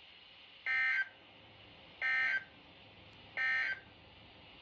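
NOAA Weather Radio SAME end-of-message data bursts: three short buzzy digital bursts about a second and a half apart, marking the end of the alert broadcast.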